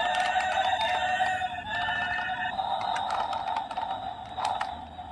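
Steady whir of a small battery-powered toy train motor running, with scattered plastic clicks and knocks as toy train cars are handled and coupled.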